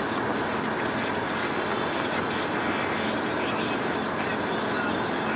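Steady engine and tyre noise heard inside a van's cab cruising at motorway speed.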